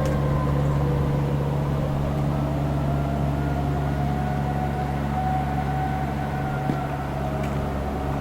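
Distant outdoor tornado warning siren holding a faint, steady tone that drifts slightly lower in pitch, over a loud steady low hum.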